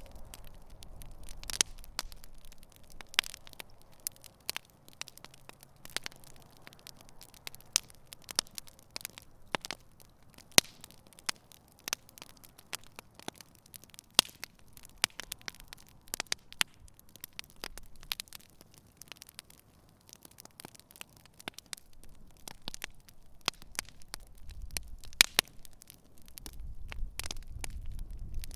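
Campfire burning, with irregular sharp crackles and pops from the wood. A low rumble builds near the end.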